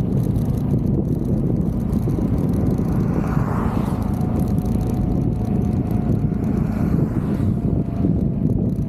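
Wind rushing over the microphone of a Vespa GTV 300 scooter on the move, with the scooter running underneath. The noise rises briefly about three and a half seconds in, and a faint steady whine follows for a few seconds.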